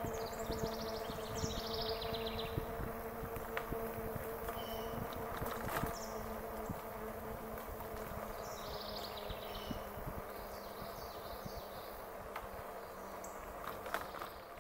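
Electric bike's motor whining steadily while riding, over a low rumble of wind and tyres, with short high chirping trills a few times.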